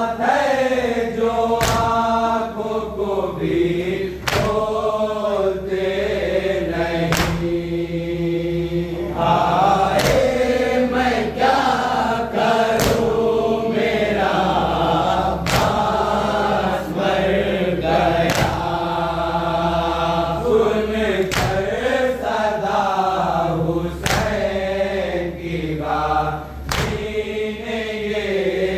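A group of voices chanting a Shia noha, a lament for Abbas, in a slow wailing melody. Sharp slaps land every one to three seconds, the matam (hand-on-chest beating) that keeps time with a noha.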